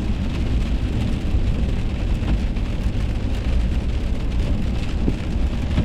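Heavy rain falling: a steady hiss over a strong low rumble, cutting off suddenly near the end.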